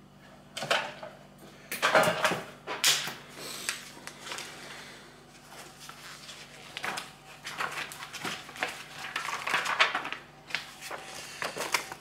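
Handling noises: a series of knocks and paper rustling as a printed catalog is picked up and its pages leafed through, over a faint steady hum.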